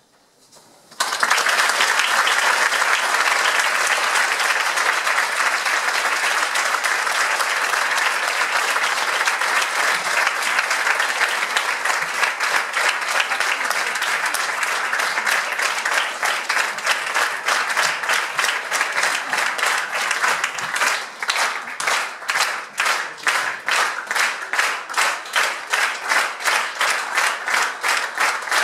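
Audience applause breaking out suddenly about a second in, loud and dense. Over the last third it turns into rhythmic clapping in unison with a steady beat.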